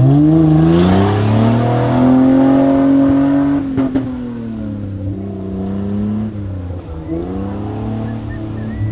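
Off-road race car's engine revving hard, its pitch climbing steeply at the start and holding high for about three seconds, then falling and rising and falling again at lower revs. A couple of sharp knocks about four seconds in.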